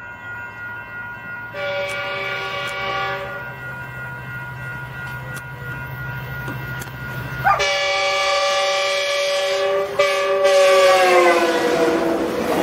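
Metrolink locomotive air horn sounding two blasts at a grade crossing: a short one of about two seconds, then a longer one whose pitch drops as the locomotive passes. A steady low engine hum runs under the first blast, and the rushing noise of the passing train takes over near the end.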